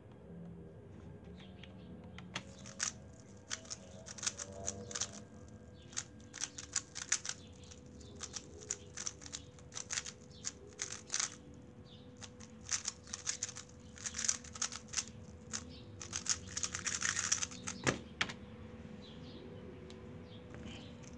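A Weilong GTS2 3x3 speed cube being turned fast in a timed solve: quick runs of plastic clicking and clacking start about two seconds in. They end near the end with one sharp knock as the solve finishes.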